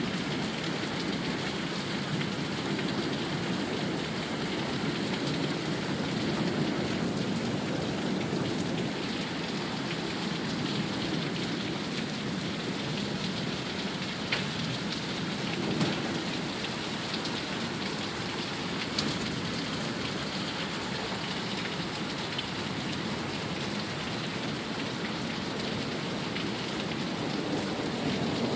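Heavy rain pouring down steadily in a thunderstorm downpour, with a few sharp drip taps now and then.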